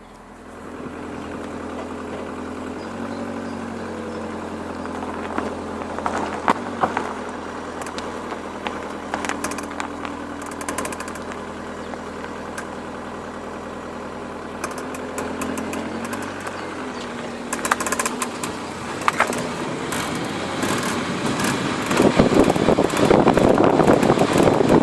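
MG F 1.8 VVC engine running at a steady idle, with scattered sharp ticks over it. This is the odd noise the owner is trying to record. Near the end the sound turns louder and rougher.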